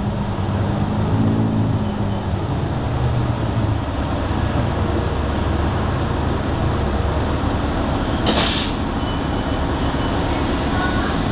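Inside a New Flyer XD60 articulated diesel bus on the move: steady engine and road rumble, the engine's hum easing off a few seconds in. About eight seconds in comes a short hiss of air.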